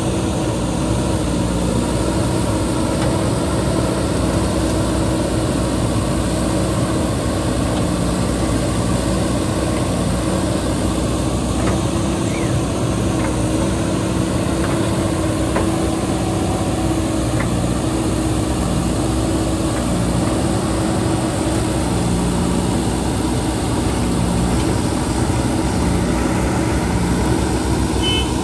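JCB 3DX backhoe loader's diesel engine running steadily as the backhoe digs, holding an even pitch with no change in level.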